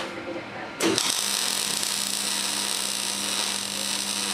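Gas-shielded MIG welding arc on steel plate: the arc strikes about a second in and then runs as a steady, even hiss, over a low steady hum.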